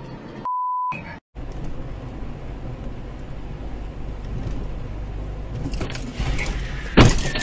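A short steady beep about half a second in, then a car's engine and road noise, ending in a loud crash about seven seconds in as the car collides with a pickup truck turning across its path.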